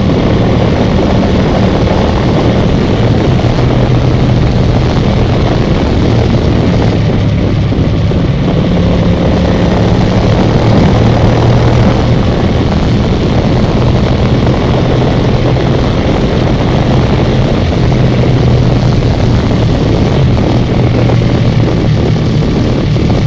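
Ducati ST4S's 996 cc V-twin engine running at steady road-cruising revs, recorded on the moving bike with loud wind rush over the microphone.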